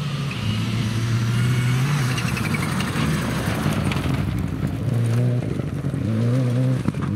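Mitsubishi Lancer Evolution rally car at full throttle on a loose gravel stage, passing close by with its tyres crunching over the gravel. As it pulls away it accelerates up through the gears, the engine note climbing and dropping back with each shift, roughly once a second.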